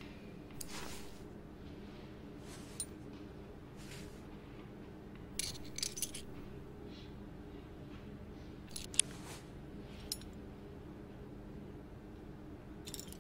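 Scattered small metallic clicks and clinks of watchmaker's tweezers and tools touching the parts of a Nomos watch movement, with a short cluster about six seconds in and a sharp click about nine seconds in, over a steady low hum.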